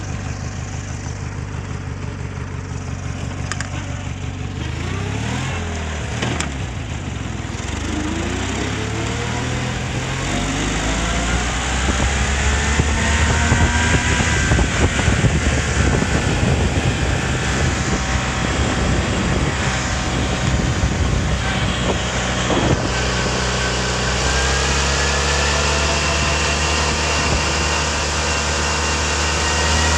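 Westwood ride-on mower's twin-cylinder engine running hard as the mower accelerates along a road to nearly 30 mph, with rising whines over the engine note. The sound grows louder from about ten seconds in and stays strong.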